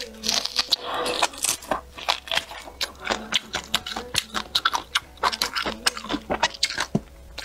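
Close-miked eating: a bite into a piece of spicy bullfrog, then wet chewing and lip smacking, with many quick mouth clicks.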